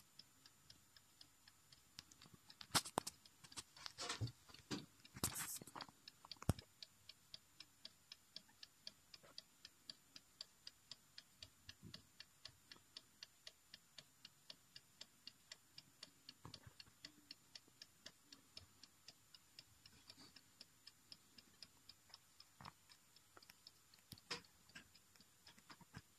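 Small clock movement ticking faintly, quick and even. There are a few louder knocks in the first six seconds.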